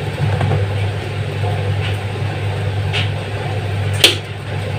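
A steady low hum, with light ticks and one sharp tap about four seconds in, as spice is shaken from a small jar into a stainless steel mixing bowl.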